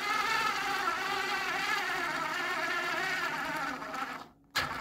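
BLACK+DECKER BDAS36V 3.6-volt lithium-ion screwdriver with its right-angle attachment running under load, a steady, slightly wavering motor whine as it drives a screw into wood. The motor stops about four seconds in, and a sharp click follows.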